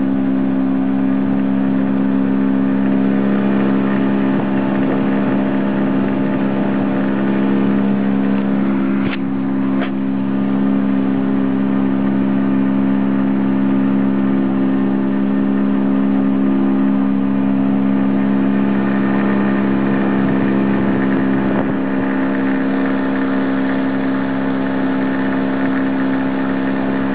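Boat's engine running at a steady, even speed, a constant hum under some rushing noise, with two faint ticks about nine seconds in.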